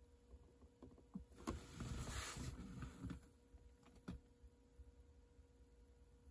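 Quiet interior of a parked car: a sharp click about a second and a half in, a brief rushing noise just after it lasting about a second and a half, and another sharp click about four seconds in.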